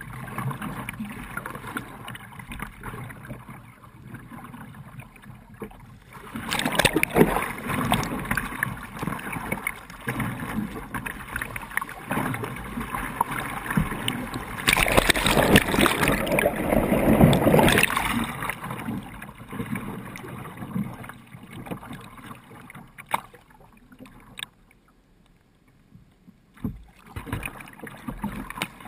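River water splashing and rushing around a small playboat kayak as it is paddled. The water noise swells twice, about six to ten seconds in and again around fifteen to eighteen seconds, then drops low near the end.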